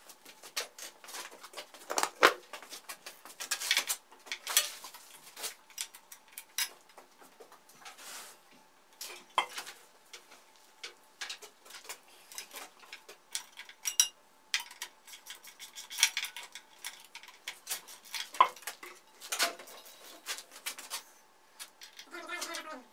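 Irregular clinks and clicks of small metal parts and hand tools being handled. Near the end an electric motor starts to spin up with a rising whine.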